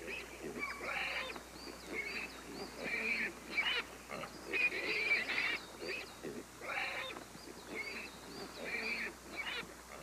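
Japanese wild boar piglets squealing: many short, high-pitched squeals overlapping and following one another in quick succession.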